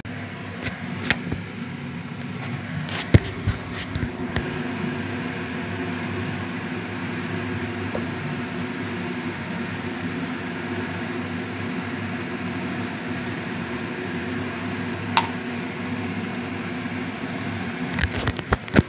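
Chicken and potato curry simmering in a kadai on a gas burner: a steady bubbling hiss over a low hum, with a few sharp knocks in the first few seconds and again near the end.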